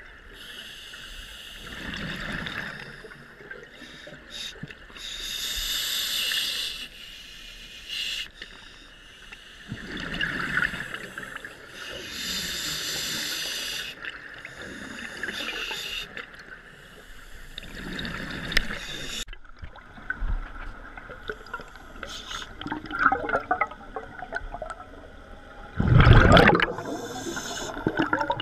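Scuba regulator breathing underwater: hissing inhalations alternating with bubbling exhalations every few seconds. From about two-thirds of the way in, crackling bubbles take over, with one loud bubble surge near the end.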